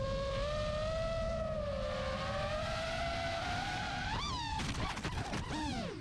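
DJI FPV drone's motors and propellers whining at a steady, slowly wavering pitch, then a sharp rise in pitch about four seconds in, followed by a run of rapid clattering knocks as the pitch falls: the drone crashing, its props striking the ground.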